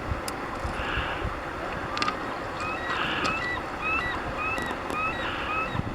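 Steady rush of river water, with a bird calling in short repeated notes, about two a second, starting about two seconds in.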